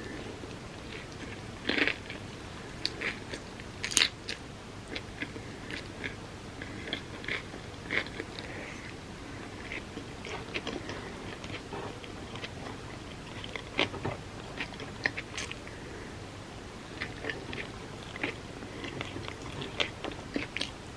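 Close-miked eating: steady chewing with many small wet mouth clicks, and a handful of sharper, louder bite sounds scattered through.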